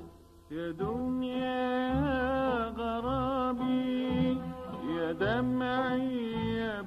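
Slow Middle Eastern-style music: a melody of long held notes with wavering, ornamented pitch over a low accompaniment, coming in after a brief pause at the start.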